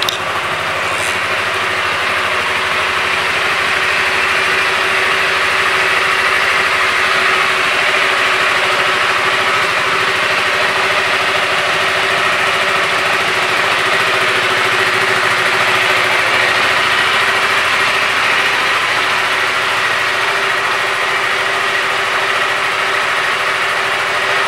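2007 Aprilia Scarabeo 500 scooter's single-cylinder engine idling steadily, with no revving.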